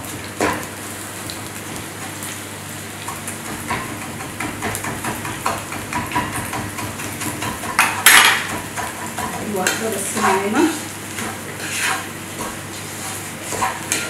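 Qatayef frying in oil in a pan with a steady sizzle, and a metal fork and knife clinking against the pan and the cutting board. A louder clatter comes about eight seconds in.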